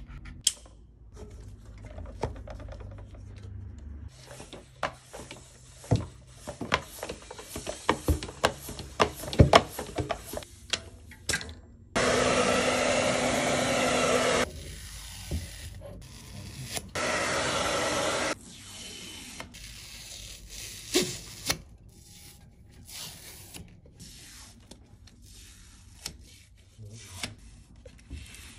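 Clicks, knocks and rubbing from hand work on a mountain bike frame, broken twice by a hair dryer blowing steadily, about two and a half seconds the first time and a second and a half the second time, heating a protective frame-guard film.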